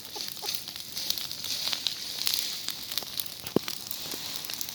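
A fire burning through vegetation: a steady hiss with many sharp crackles, and one louder pop about three and a half seconds in.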